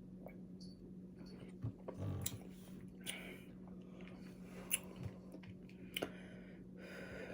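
A person drinking soda in gulps: faint swallowing and wet mouth sounds with small clicks, over a steady low hum.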